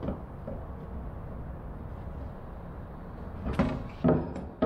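Steady low hum of a large shop, then near the end three short knocks and creaks of plywood panels being pushed and handled on a wooden workbench.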